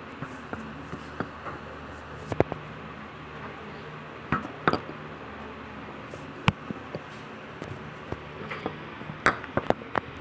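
Irregular light clicks and clinks of small hard objects, like paint jars, lids and brushes, being handled on a tabletop, over a steady low hum.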